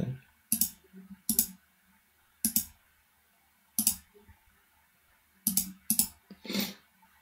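Computer mouse clicking: separate clicks at uneven intervals, some in quick pairs, while on-screen formatting is chosen.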